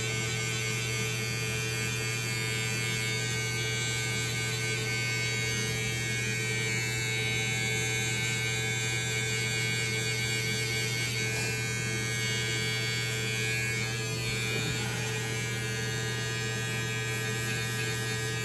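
Electric hair clippers running with a steady low buzz as they trim the hair around and behind an ear.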